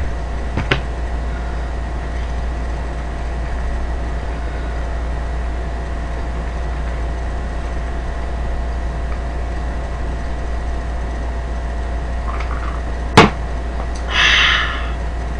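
Steady low electrical hum with an even hiss underneath and a faint thin tone. About thirteen seconds in there is one sharp, loud knock, followed about a second later by a short breathy burst.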